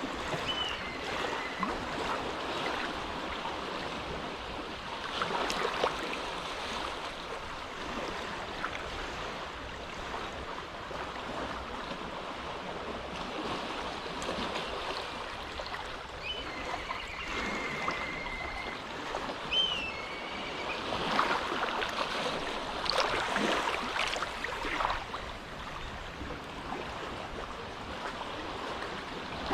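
Small waves lapping at the shore of a calm inlet, a steady wash that swells a little louder a few seconds in and again for a while past the middle. A few brief whistled bird calls come at the start and again around the middle.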